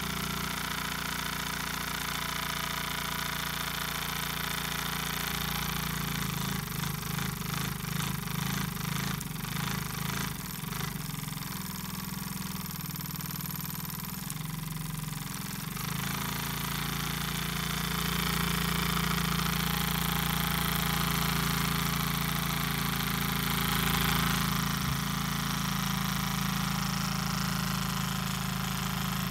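Opitec brass model steam engine running with a fast, even chuffing rattle, clearest for several seconds in the middle, over a steady low hum.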